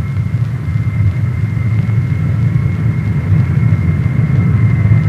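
Lockheed C-5 Galaxy's TF39 turbofan engines in flight: a steady low rumble with a thin, steady high whine above it, slowly growing louder.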